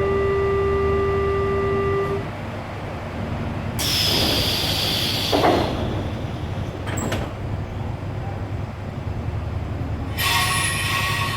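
Budd/Mafersa 1100-series electric multiple-unit train growling as it pulls out of a station, with a steady low rumble throughout. A steady pitched tone stops about two seconds in. Bursts of high hissing and squealing come at about four seconds and again near the end.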